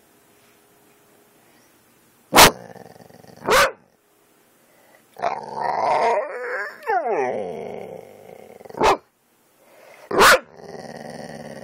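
A dog barking: four sharp single barks, two in the first half and two in the second, with a drawn-out howl-like call in the middle whose pitch slides down and back up.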